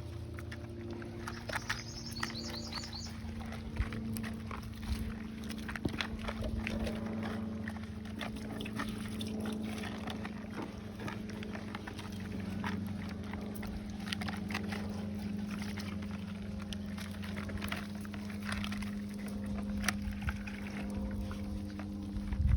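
Stray dogs eating, heard as many small irregular clicks and smacks of chewing and lapping over a steady low hum. A quick run of high chirps comes about two seconds in.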